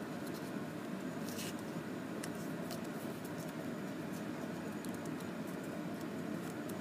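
Sheet of origami paper being folded and creased by hand on a tabletop: a few faint crinkles and light taps over a steady background hiss.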